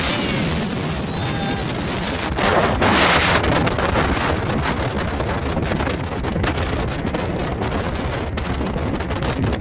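Heavy wind buffeting the microphone over the steady running of a Mercury outboard jet driving a jon boat at full speed, about 30 mph. A louder gust comes about three seconds in.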